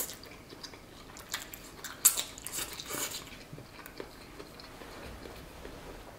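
A person chewing a mouthful of fettuccine pasta close to the microphone: soft mouth clicks and smacks, with one sharper smack about two seconds in.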